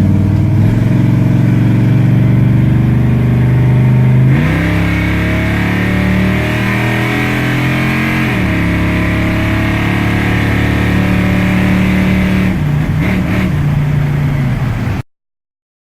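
A small-block Chevy 350 V8 with a mild cam, running through dual Spintech Pro Street mufflers with no tailpipes, drives off in a pickup. The engine note steps to a new pitch about four, eight and twelve seconds in, then cuts off suddenly near the end.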